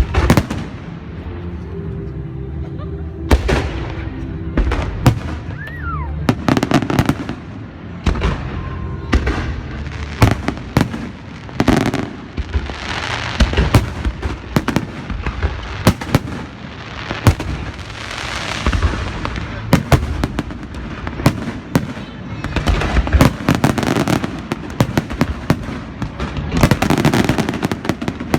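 Fireworks and beehive rockets going off in a dense, uneven barrage. Sharp loud bangs overlap a hissing rush of rockets, with a short rising whistle about six seconds in.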